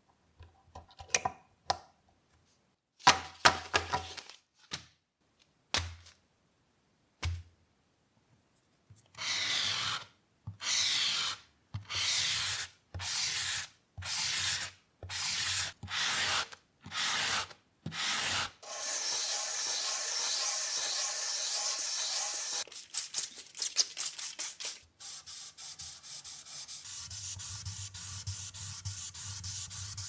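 A few sharp clicks and knocks from handling a Zippo lighter insert in its wooden case, then hand sanding of a curly Koa wood and epoxy resin block. About ten back-and-forth strokes on a sanding sponge, roughly one a second, give way to continuous faster rubbing, and near the end to quieter wet sanding on wet sandpaper.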